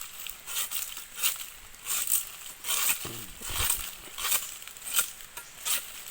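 Irregular crackling, rustling strokes of dry plant material being handled or broken, about one every half second, with a soft low thump about three seconds in.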